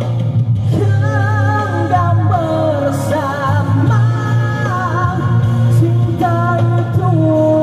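A man singing a slow Malay pop song live through a microphone over backing music. He holds long notes with vibrato, starting a new phrase about a second in.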